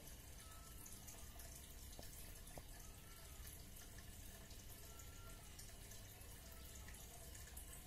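Near silence: faint room tone with two faint ticks about two seconds in.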